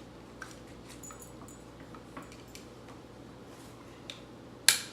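Faint small metallic clicks and rattles of a BB rifle being handled, then one loud sharp snap near the end.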